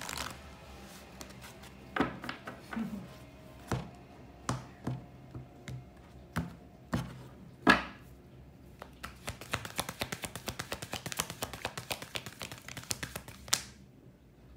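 A deck of cards being shuffled by hand: scattered taps and knocks of the cards over the first several seconds, then a fast run of crisp card clicks from about nine seconds in until shortly before the end.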